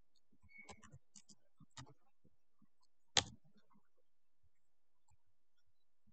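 Computer keyboard typing: a quick run of faint key clicks, then one louder keystroke about three seconds in, the Enter key confirming the entry and moving to the next field.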